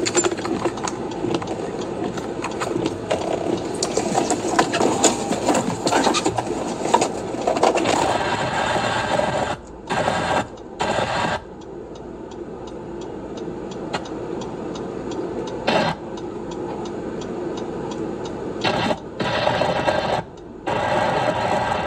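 Steady car noise heard from inside the cabin, engine and wind or road rumble, with scattered small clicks in the first half. It cuts out abruptly and returns several times in the second half.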